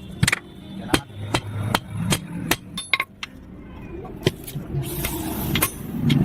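Hammer blows on a steel rod, sharp ringing metal strikes about two a second, then slowing and spacing out. A hiss rises about five seconds in, and a low hum builds near the end.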